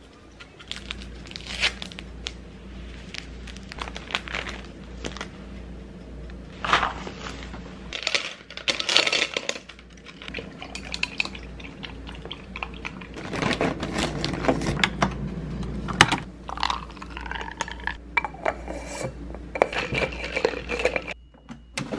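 Kitchen clatter while making coffee: a spoon clinking and scraping against cups and a tumbler, in scattered sharp knocks, over a steady low hum. Near the end a spoon stirs in a cup.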